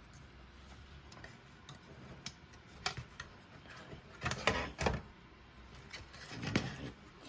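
Scattered clicks and knocks of a cassette deck's parts being handled, with a cluster of louder knocks about four and a half seconds in and another about six and a half seconds in.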